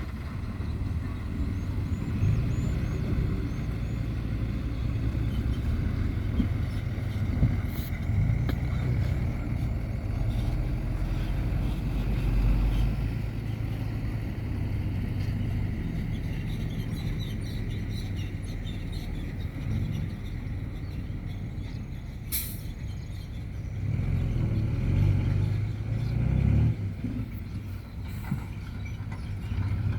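Construction-machine engine running steadily with a low rumble that swells for a few seconds near the end, plus one sharp click about twenty-two seconds in.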